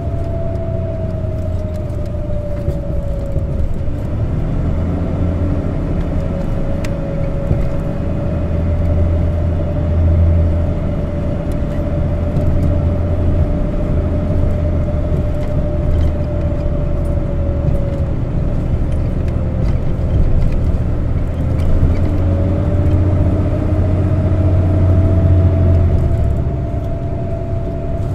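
Isuzu Erga CNG city bus heard from inside the passenger cabin while driving: a low engine drone with a steady whine above it. The whine sinks slightly in pitch over the first few seconds, holds, and climbs again about three-quarters of the way through as the drone swells.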